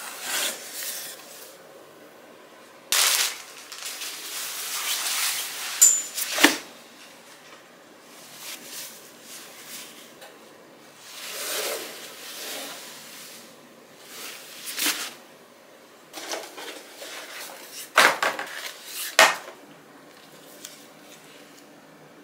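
Cardboard boxes and their paper and wrapping being handled: rustling and scraping in bursts, with a few sharp knocks, two of them about a second apart late on.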